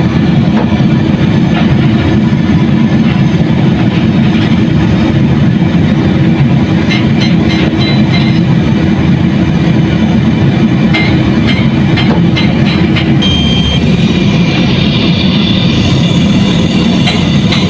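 Excavator-mounted hydraulic breaker hammering rock in rapid, continuous blows over the heavy machinery's engine rumble, heard from inside a machine's cab. A steady hum underneath cuts out about thirteen seconds in.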